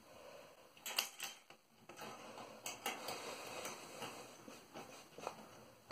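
Faint metallic clicks and scrapes as a small screw-in eye of a hook-and-eye latch is twisted by hand into the cage's side panel, the loose hook clinking against it. There is a small cluster of clicks about a second in, then scattered single ones.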